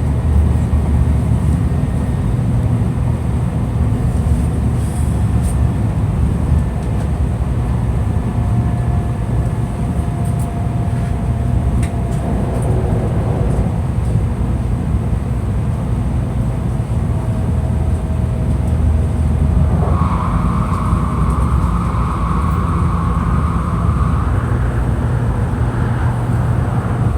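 Steady low rumble of a Tokaido Shinkansen train running, heard inside the passenger car. A higher whine joins in about twenty seconds in and fades a few seconds later.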